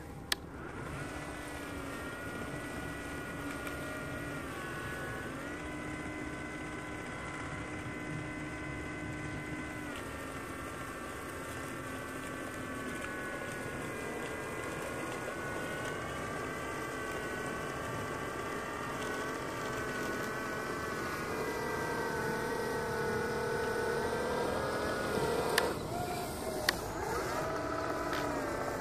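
Small RC 3D-printed snow blower and tracked snowcat running, a steady motor whine that shifts up and down in pitch several times as the blower throws snow. There are two sharp clicks near the end.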